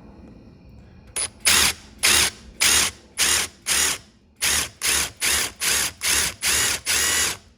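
Cordless impact driver with a drill bit, triggered in about a dozen short bursts, roughly two a second, as it drills into a broken-off reverse-thread bolt stuck in a miter saw's arbor shaft.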